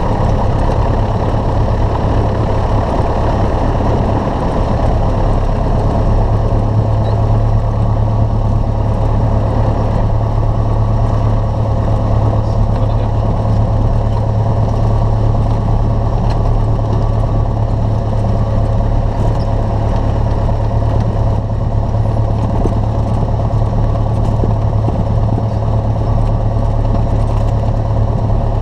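Cessna 172's piston engine and propeller idling steadily just after a cold start.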